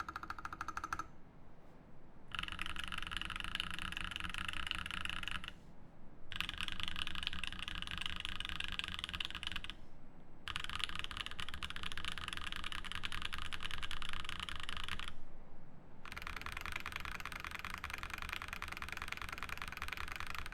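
Fast typing on a Matrix Noah V1 mechanical keyboard with lubed Gazzew Boba U4T tactile switches and GMK keycaps on an aluminium plate: a dense run of keystrokes. It comes in four stretches of several seconds, with short pauses about a second, five and a half, ten and fifteen seconds in.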